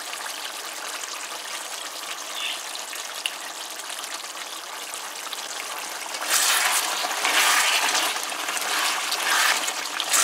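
A pot of goat curry boiling with a steady bubbling hiss. About six seconds in, a spatula stirring through the pot brings louder, uneven swishing of the liquid.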